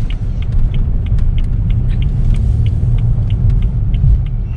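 Cabin noise of a BMW 328i xDrive on the move: a steady low engine and road rumble, with a faint, fast ticking of about four ticks a second over it.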